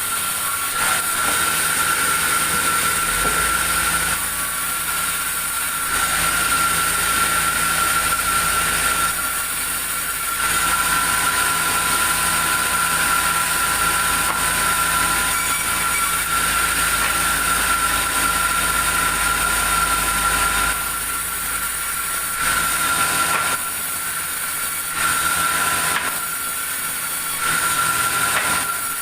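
Sawmill saw running with a steady high whine and loud mechanical noise, with a deeper rumble through most of the first two-thirds, the kind of change a log feeding through the blade brings, and the loudness rising and falling every few seconds.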